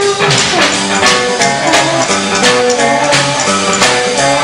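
Country boogie band playing an instrumental passage with a steady beat: guitars, steel guitar, upright bass fiddle and drums.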